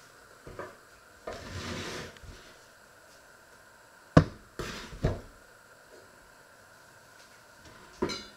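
Handling knocks: a short hiss, then a sharp knock about four seconds in, two softer knocks just after, and a light click with a brief ring near the end.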